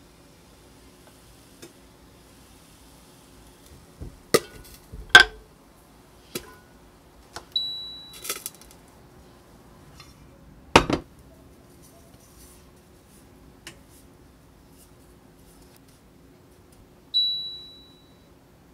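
Cookware handled on a glass induction cooktop: a glass pot lid and pots knocking and clinking, a handful of separate knocks with the loudest about five and eleven seconds in. The cooktop's touch controls give two short beeps, one about seven and a half seconds in and one near the end.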